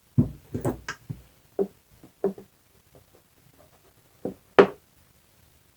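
Small carburetor parts and a tool handled and set down on a workbench: a run of sharp clicks and knocks, several in quick succession at first, then two more, the last the loudest, about four and a half seconds in.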